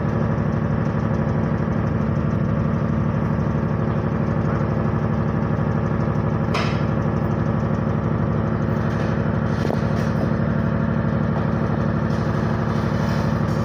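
An engine idling steadily, with one sharp click about six and a half seconds in.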